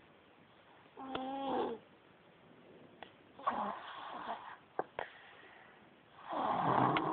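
A baby snoring loudly: a short pitched snort about a second in, then two long snores, the second and loudest near the end.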